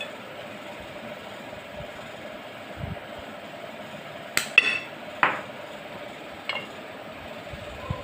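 Kitchen handling noises: four short clicks and knocks in the second half, the first with a brief ring, as a plastic-capped spice shaker and a glass mixing bowl are handled. A steady hum runs underneath.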